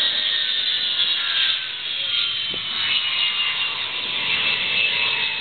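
Ilyushin IL-76 transport's four turbofan engines running, a high whine that falls slowly in pitch over a steady rushing noise.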